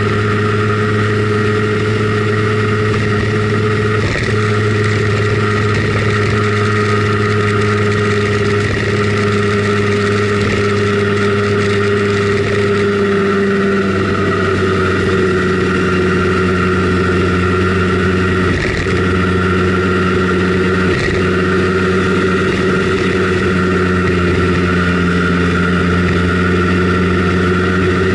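Simson Schwalbe KR51/2 scooter's 50 cc two-stroke single-cylinder engine running steadily under way, heard from on board. Its pitch drops a little about halfway through, with a few brief dips in the sound.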